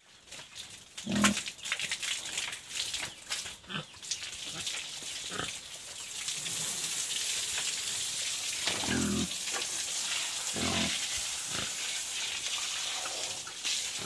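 A pig grunting a few times, once about a second in and twice more later, over a wet concrete pen floor being scrubbed with a brush. From about six seconds in, water sprays steadily from a hose onto the floor with a continuous hiss.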